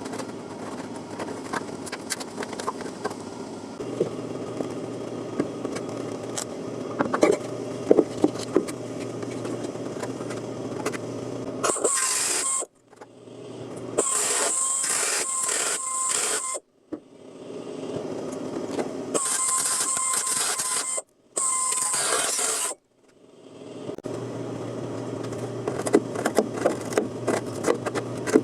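Scraping and clicking of hand work on car body sheet metal, then from about twelve seconds in four short, loud hissing bursts of a power metalworking tool. Each burst cuts off abruptly, and the scraping and clicking resume near the end.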